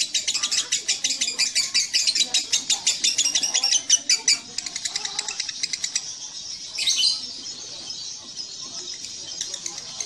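Fischer's lovebird giving its long ngekek chatter: a fast run of sharp, high-pitched notes at about ten a second. The run is loud for the first four and a half seconds, then goes on more softly, with one brief louder burst near seven seconds.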